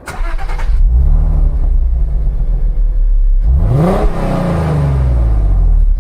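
Car engine revving up over a steady low rumble, its pitch rising sharply about three and a half seconds in and again at the end; a brief hissing burst at the very start.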